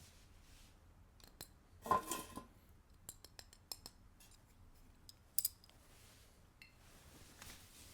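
Small clicks and taps from handling a perfume bottle and its packaging. There is a brief ringing clink about two seconds in, a run of light clicks just after three seconds, and a sharp double click about five and a half seconds in.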